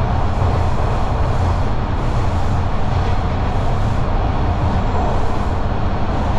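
TTC Line 2 subway train running between stations, heard from inside the car as a loud, steady low rumble with an even rushing noise over it.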